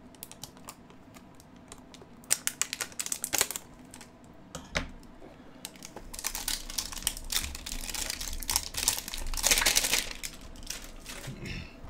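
A cardboard trading-card hanger box being cut open with a dull knife: scattered scratchy clicks, then a longer stretch of crinkling and tearing of its wrapping, loudest near the end.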